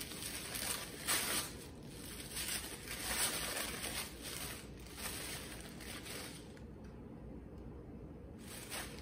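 Packaging being torn open and crinkled by hand as a small boxed item is unwrapped, in a run of short rustling bursts that stop about six and a half seconds in.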